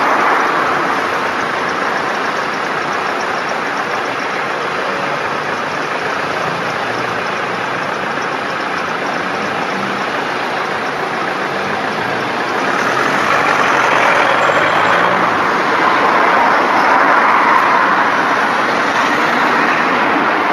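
Bus engines idling and running at a bus station, a steady traffic din that grows louder about two-thirds of the way through.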